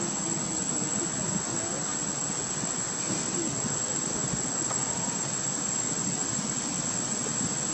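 Steady high-pitched drone of forest insects, with an unbroken low rumble beneath it.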